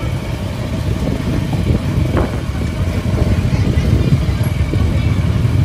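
Busy street ambience: a steady rumble of motorbike and car traffic, with voices in the background.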